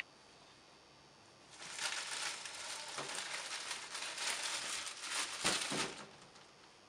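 A bread bag crinkling as it is opened and the loaf handled, starting about a second and a half in and lasting about four seconds, with a few sharper rustles near the end.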